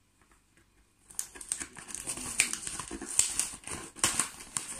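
Paper wrapping and packing tape being crumpled and torn off a parcel by hand: dense crinkling and crackling that starts about a second in.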